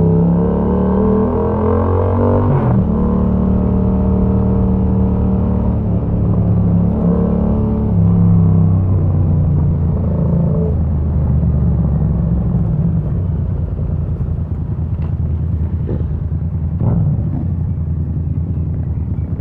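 Yamaha MT-07's parallel-twin engine running through an aftermarket Mivv exhaust with the dB killer removed, heard from the bike while riding. The revs climb, then drop suddenly with an upshift about two and a half seconds in, then hold fairly steady with small rises and falls. A few faint knocks come near the end.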